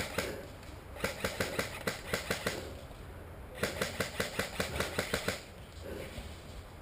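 Airsoft gunfire: two quick strings of sharp shots, about six a second, about nine or ten shots each, with a pause of about a second between them.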